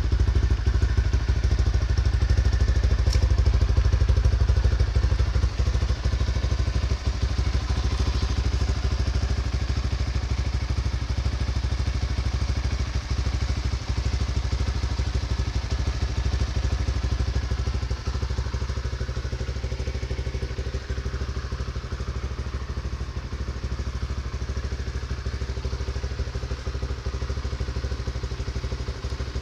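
Honda RS150 fuel-injected single-cylinder four-stroke motorcycle engine idling steadily, gradually getting a little quieter.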